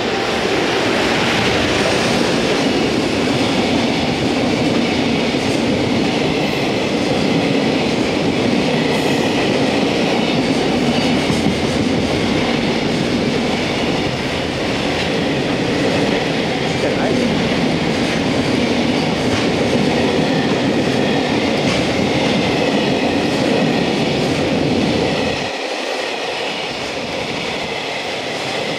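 A JR Freight EF210 electric locomotive comes past hauling a long container freight train, followed by the steady rumble and rhythmic wheel clatter of the container wagons rolling by. The low rumble eases a little near the end.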